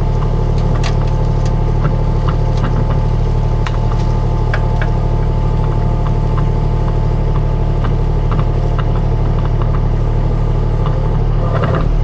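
Skid steer engine running steadily, with scattered sharp clanks and cracks over it.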